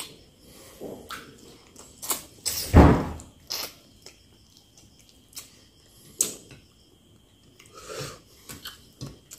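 Close-up eating sounds of a person eating goat kaldereta and rice by hand: scattered wet lip smacks, chewing and finger noises. One louder thump-like noise comes about three seconds in.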